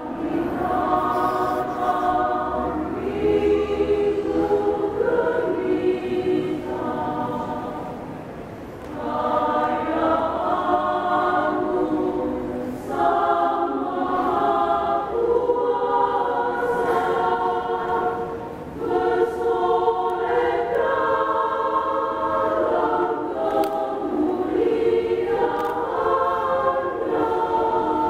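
Women's choir singing a hymn, in phrases with short breaks between them.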